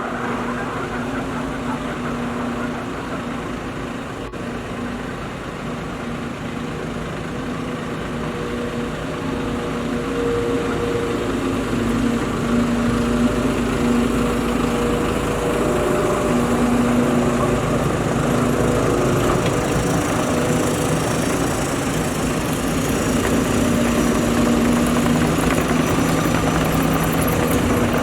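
Skid steer loader's engine running steadily, its pitch shifting up and down now and then. It grows louder from about ten seconds in.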